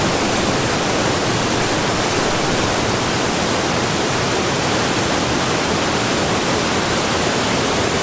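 Rushing river cascading over rocks, a steady, even rush of white water.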